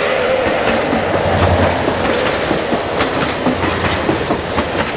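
O-gauge three-rail model train cars rolling past on the track, the wheels clicking over the rail joints over a steady running rumble.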